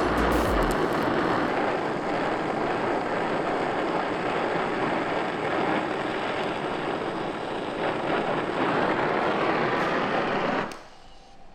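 Dillon oxy-acetylene gas torch flame running with a steady hiss while fusion welding steel, stopping suddenly near the end. A few low thumps come in the first second.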